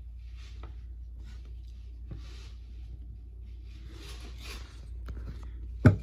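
Quiet room with a steady low hum and a few soft breaths close to the microphone, then one dull thump just before the end.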